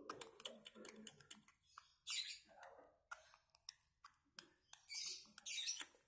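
Baby lovebird giving two raspy, high-pitched begging cries while being syringe-fed porridge, one about two seconds in and one near the end, after a run of soft clicks in the first second and a half.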